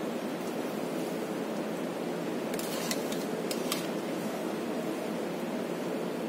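Metal spatula scraping and clinking against a large steel kadhai as poha is stirred and spread, with a few sharp clinks about halfway through, over a steady background hiss.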